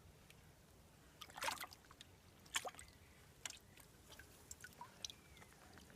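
Faint water splashing and dripping with a few scattered wet clicks, the loudest about one and a half and two and a half seconds in.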